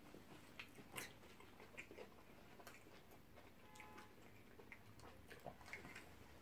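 Faint chewing of shawarma wraps, with scattered small clicks and rustles from mouths and the paper around the wraps.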